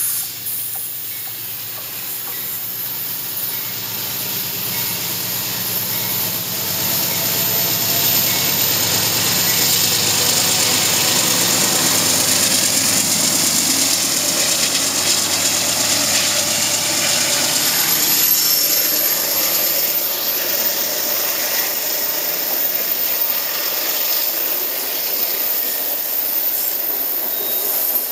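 Passenger train passing close by: the diesel locomotive's engine running under a steady rumble and hiss of the wheels on the rails, building for several seconds and loudest in the middle, then the coaches rolling past.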